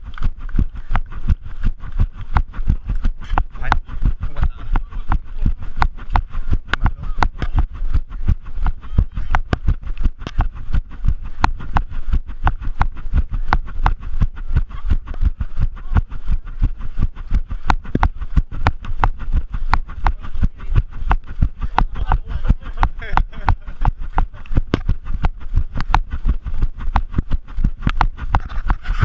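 A runner's footsteps, in an even running rhythm of about three strides a second, each a sharp thud with a deep rumble behind it.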